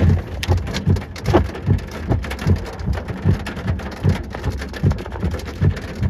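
Rain pattering on a vehicle's windshield and body while driving, over a regular low thumping about two and a half times a second.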